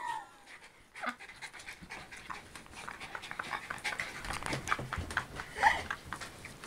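Small dog panting quickly during rough play with another dog, with a short higher sound near the end.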